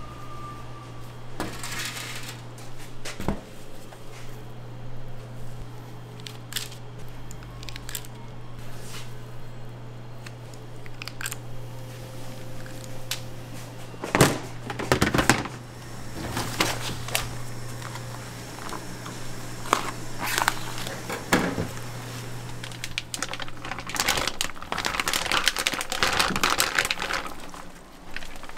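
Food-prep handling noise: scattered knocks and clatter of brown plastic bins on a stainless-steel worktable, loudest about halfway through, with some crinkling of plastic. A steady low hum underneath stops a few seconds before the end.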